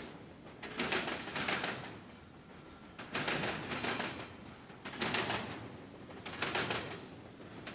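Steel wheels of a slow-moving intermodal train clattering over a railroad crossing diamond, a group of sharp clacks every one to two seconds as each car's wheel trucks pass over the gaps in the crossing rails.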